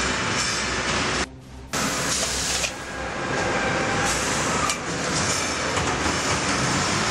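Steady mechanical din of a concrete block production line's loading and conveying equipment running, with a brief drop in sound about a second and a half in.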